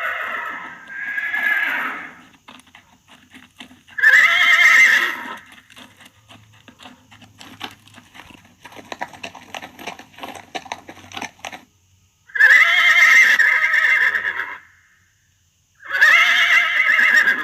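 A horse neighing several times: a whinny fading out at the start, then loud neighs about four seconds in, a longer one of about two seconds around twelve seconds in, and another near the end. Between them, a stretch of quieter, irregular clicking of hooves.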